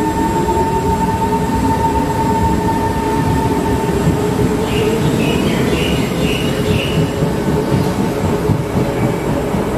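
Metro train running along the track through an elevated station: a steady rumble of wheels on rail with an electric motor whine that rises in pitch over the first two seconds as the train picks up speed. A faint high squeal sounds between about five and seven seconds in.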